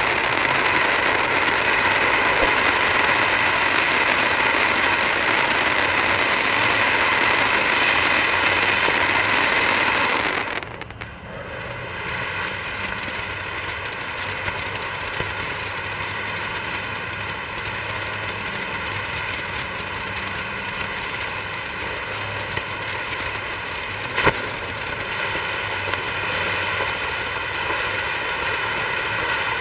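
Black Cat Summer Rain firework fountain spraying sparks with a steady loud hiss. About ten seconds in it briefly dies away and then picks up again a little quieter as the sequential fan moves on to its next shots. A single sharp pop comes a few seconds before the end.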